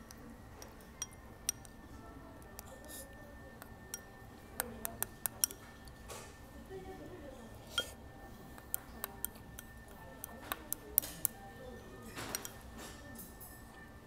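Tableware clinking during a meal: utensils tapping against bowls, dishes and glass in irregular light clicks, with small quick runs about five seconds in and again near eleven seconds.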